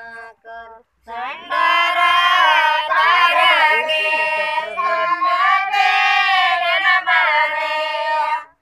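Women singing a Kannada Gauri festival folk song with no instruments, voices loud and drawn out on long held notes. A short break comes about a second in, and the singing stops just before the end.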